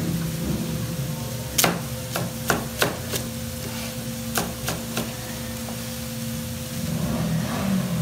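Chef's knife chopping a red onion on a plastic cutting board: about eight sharp knocks of the blade on the board in two quick runs, over a steady low hum.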